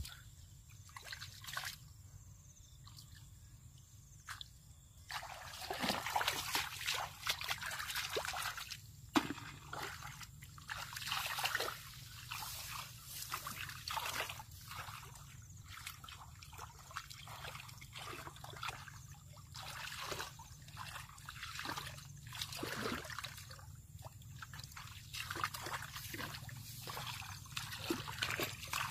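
Water sloshing and splashing in many short, irregular bursts, starting about five seconds in, over a steady low hum.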